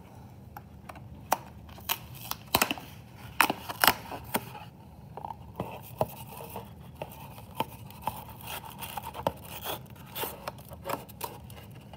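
A box of heavy-duty aluminum foil being handled and opened: a run of sharp clicks, taps and crinkles of cardboard and foil, loudest around three to four seconds in.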